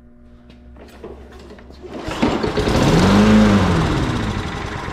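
Tecumseh lawn mower engine firing on starting fluid about two seconds in. It runs briefly, its speed rising and then falling away as it dies. With spark and compression present, this is probably a fuel issue.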